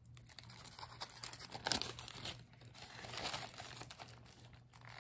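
Clear plastic zip-top bags crinkling and rustling in irregular handfuls as jewelry is handled over them, the loudest rustle a little under two seconds in.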